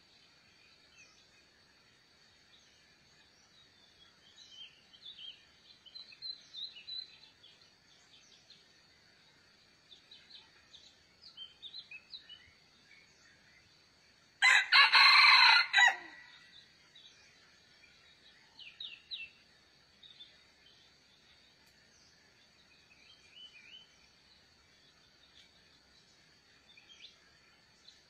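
A rooster crows once, a single loud call of about a second and a half about halfway through, with faint small-bird chirps scattered around it.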